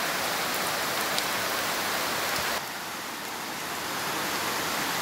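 Heavy rain pouring steadily onto leaves and foliage. The sound drops a little in level about halfway through, then builds again.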